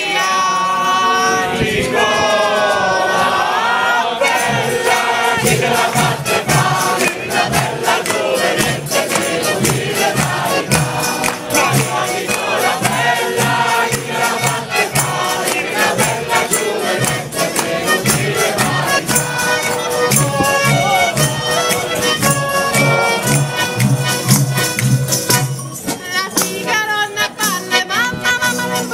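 Abruzzese folk band playing a traditional dialect song: a small button accordion carrying the tune over strummed guitars, jingling tambourines and a beaten drum keeping a steady dance rhythm, with voices singing along.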